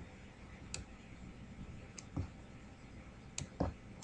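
A few faint computer mouse clicks, spaced out, with two pairs of clicks in quick succession.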